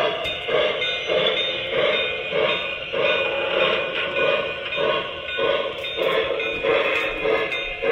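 Lionel O-gauge model train running past, its Washington Terminal 0-6-0 steam switcher's sound system giving an even chuffing rhythm of about one and a half beats a second, with its swinging bell ringing.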